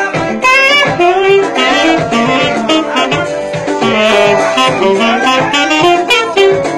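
Saxophone playing a lively melody of quick runs and bending notes, with vibrato on the held notes.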